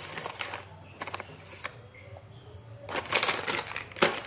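Plastic packaging rustling and crinkling in several bursts as it is handled, loudest about three seconds in, with a sharp knock near the end.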